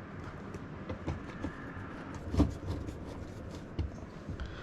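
Handling noises of the stereo head unit being fitted back into its panel and screwed in: scattered light clicks and knocks, with one heavier thump about halfway through.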